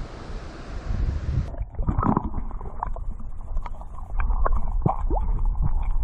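Creek water heard through a submerged camera: muffled low rumbling and gurgling with scattered clicks and short pops. It cuts in abruptly about a second and a half in, after a moment of open-air creek noise.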